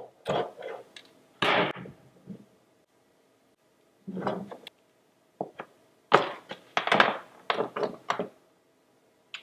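Hand tools (wire cutters, wire stripper and utility knife) being handled and set down on a wooden workbench while wire is trimmed and stripped: irregular knocks and clicks, a few scattered at first, then a quick run of them a little past the middle.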